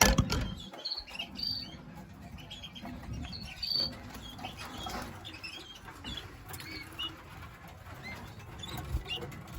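A room full of caged birds chirping with many short, overlapping calls, with wings fluttering and rustling in the cages. A knock sounds right at the start.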